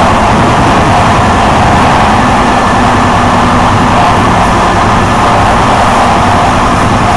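Steady, loud running noise of a moving electric train, heard from on board: wheels rolling on the rails under a low drone and rumble, with no pauses.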